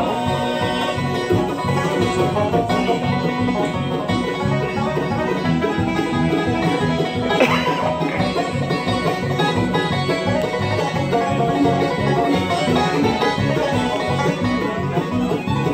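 Bluegrass band playing live in full swing: a banjo leads, backed by mandolin, acoustic guitar and resonator guitar.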